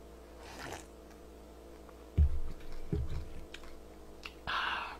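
Eating and drinking sounds as a bowl of cold naengmyeon broth is drained: faint at first, then two low thuds about a second apart and a short breathy hiss near the end.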